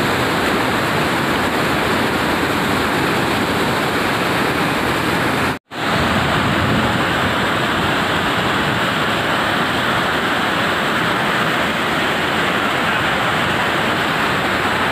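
Muddy floodwater rushing in a torrent: a loud, steady rushing noise that cuts out for an instant about five and a half seconds in.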